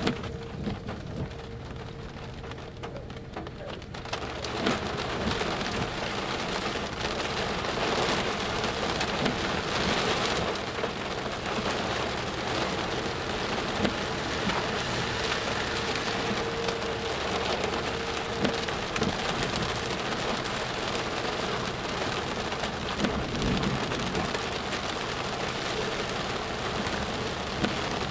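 Heavy rain pelting the windshield and roof of a moving car, over the steady hiss of tyres on a wet highway; the rain grows louder about four seconds in.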